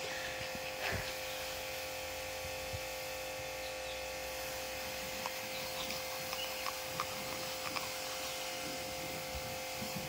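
A steady hum at a fixed pitch with a faint higher whine over it, and a few faint ticks.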